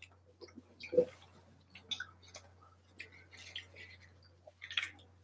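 Faint eating and handling noises while chicken nuggets are eaten: chewing with scattered small clicks and crackles, a sharper knock about a second in and a denser crackle near the end.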